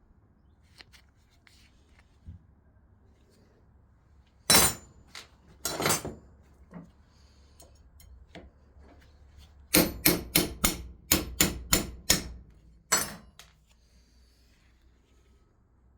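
Blacksmith's hammer striking: a couple of separate blows, a pause, then a quick run of about nine blows at roughly four a second, and one last blow.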